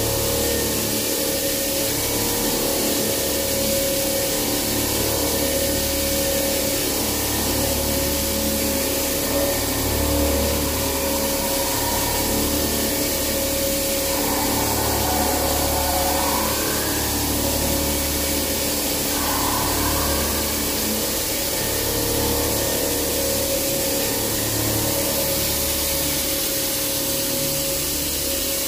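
CNC vertical machining center milling a metal block: the spindle runs with a steady hum and a steady whine, over a steady hiss from the cut and the coolant spray.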